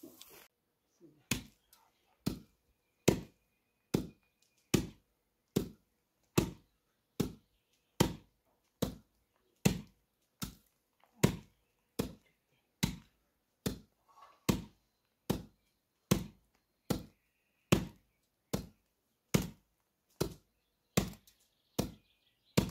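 Wheat being pounded by hand in a mortar to hull it: steady, heavy thuds of the pestle about every 0.8 seconds, all evenly spaced.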